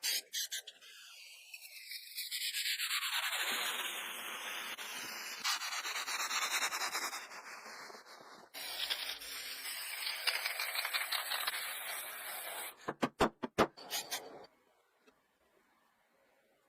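Hand sanding on wood: scratchy rubbing strokes in several stretches. A few sharp clicks come near the end, then the sound stops.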